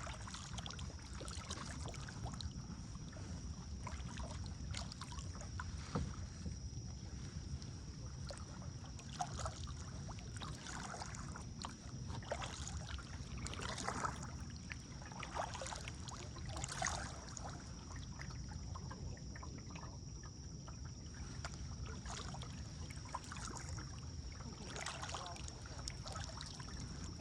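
Kayak paddle strokes dipping and splashing in the river, coming in irregular bunches, over a steady low rumble of moving water and wind on the microphone.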